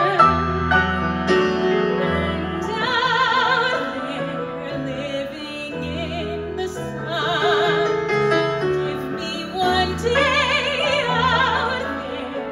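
A woman singing a musical-theatre ballad live into a microphone, belting long held notes with wide vibrato, with piano accompaniment under her.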